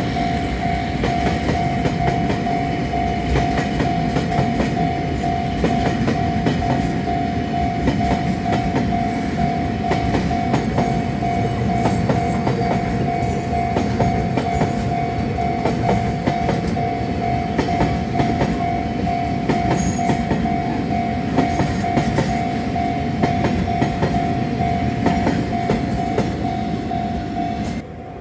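Freight train of flatcars rolling slowly through a level crossing, wheels clicking over the rail joints with a steady rumble, while the crossing's warning bell rings on in an even, pulsing tone. Both stop abruptly near the end.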